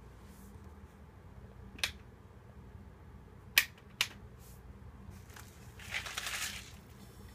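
Three sharp clicks, then, about six seconds in, a burst of crinkling as the plastic film is torn off a Nissin UFO instant yakisoba cup.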